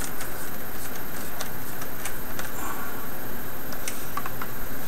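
Scattered light clicks and ticks of fingers and a screwdriver handling a laptop's plastic screen bezel and its screws, over a steady loud hiss.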